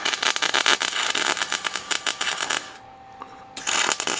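MIG welder arc crackling as a bead is laid on a steel vise screw: one run of about two and a half seconds, a pause, then a short second burst near the end.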